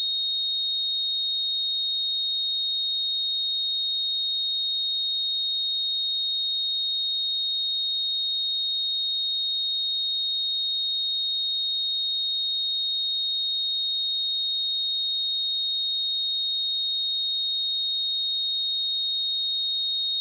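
A pure 3725 Hz sine-wave test tone, one steady high-pitched note held without change.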